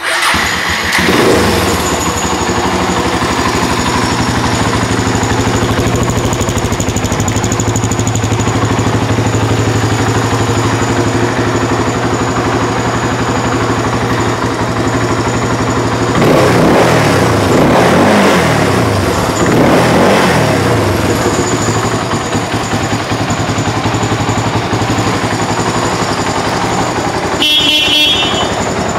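1999 Suzuki DR350SE's single-cylinder four-stroke engine idling steadily, revved up and back down twice a little past the middle. Near the end the bike's horn sounds briefly.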